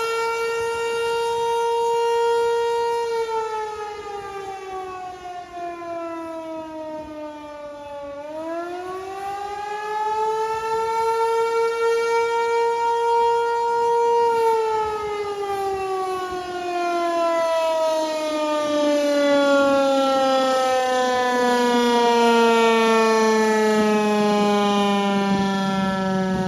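American Signal T-128 civil defense siren sounding during a test, a loud tone with many overtones. It holds steady for a few seconds, falls, climbs back up over several seconds, holds again, then winds slowly down in pitch toward the end.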